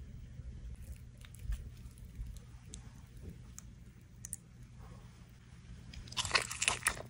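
Biting into a pan-fried birria taco: a few faint clicks, then a loud cluster of crunches about six seconds in as the browned tortilla is bitten.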